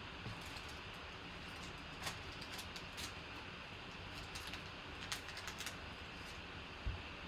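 Trading cards being handled and flipped through: scattered light clicks and snaps over a steady hiss, with a soft thump near the end.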